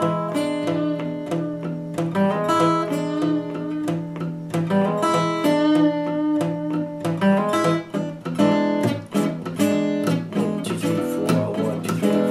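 Collings cutaway steel-string acoustic guitar fingerpicked in a blues pattern. A steady thumbed bass runs under plucked treble notes on an E chord, with the seventh added.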